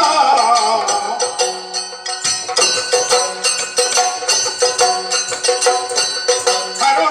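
Yakshagana stage music: strokes on a hand-played maddale drum and clashing hand cymbals over a steady drone, with jingling ankle bells as the costumed dancer moves. The music dips briefly about two seconds in, then picks up again.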